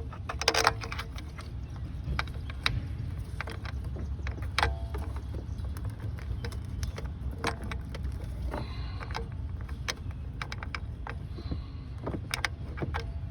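Scattered clicks, clinks and light knocks of hand tools and parts being handled, over a steady low rumble. The loudest is a quick cluster of clinks about half a second in.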